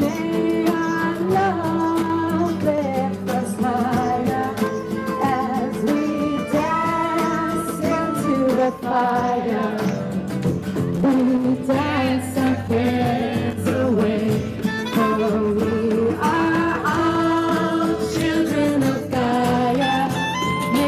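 Live music with singing: a singer's voice carries the melody over instrumental accompaniment.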